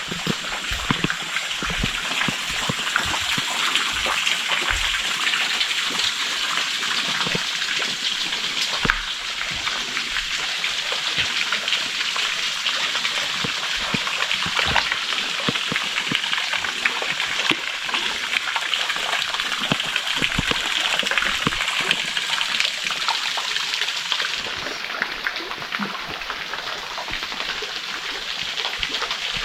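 Water rushing in a forest stream: a steady splashing hiss, with scattered short clicks and knocks through it.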